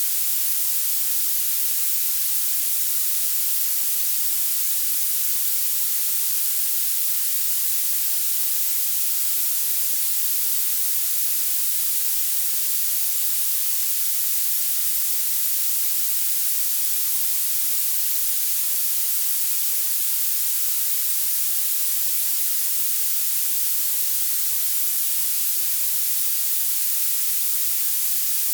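Violet noise: a steady synthetic hiss weighted heavily toward the highest pitches, with almost nothing in the low end.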